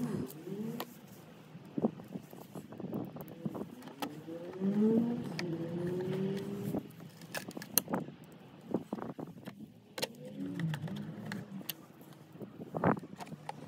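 Scattered clicks and knocks of a screwdriver and hands on the hard plastic battery boxes of a mobility scooter's battery pack. A low wavering hum rises and falls in the background a few times.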